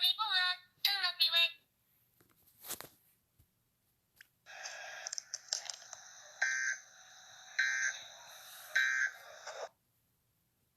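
Three short bursts of Emergency Alert System header data tones, about a second apart, over a harsh buzzing hiss that starts about four seconds in and cuts off near the end. Before it there is a short pitched, wavering voice and a single click.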